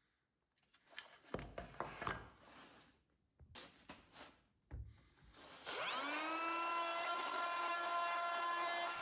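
A few knocks and taps of wood and tools being handled, then about six seconds in a small electric power tool switches on, its motor whine rising quickly in pitch and settling into a steady run, used to cut away part of a birch plywood box bottom for latch clearance.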